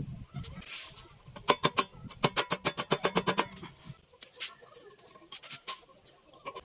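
A rapid, even run of sharp clicks, about eight a second for roughly two seconds, followed by a few scattered single clicks.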